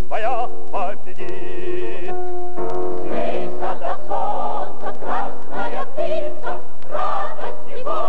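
Music from a 1937 recording of a Soviet song: a male singer holds notes with a wide vibrato over the accompaniment. From about three seconds in, a fuller ensemble with more voices and instruments carries on.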